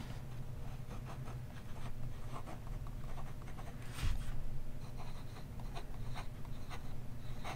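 Ridged brass dip-pen nib scratching across notebook paper in short strokes as words are written, with a soft knock about halfway through.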